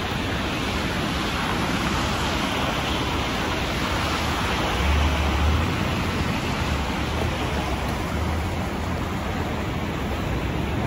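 Steady hiss of street and traffic noise on a wet, slushy road around a city transit bus idling at a stop, with low rumbles about five seconds in and again a little later.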